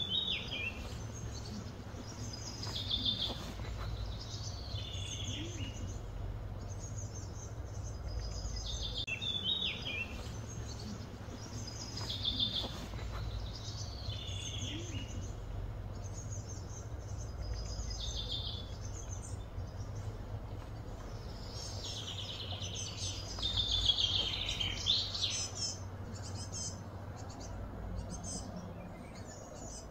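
Birds calling in short high chirping phrases every few seconds, with a denser run of calls about three quarters of the way through, over a steady low background rumble.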